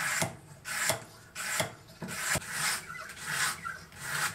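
A 240 grit sandpaper sharpening stone on a guided knife-sharpening jig rasping back and forth across a clamped knife edge, about six short scraping strokes, with a few light clicks between some of them.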